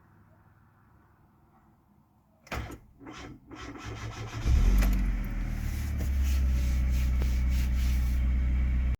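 Car engine being started through a starter the owner calls bad: a couple of short, uneven bursts of cranking, then the engine catches about four and a half seconds in and settles into a steady idle.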